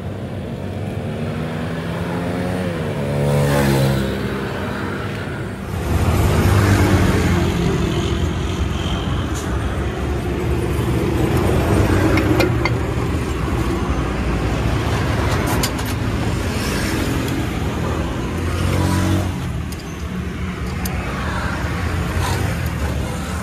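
Motor vehicle engines running close by, a continuous low rumble that shifts in pitch about three seconds in and grows louder about six seconds in. A few sharp clicks sound over it midway.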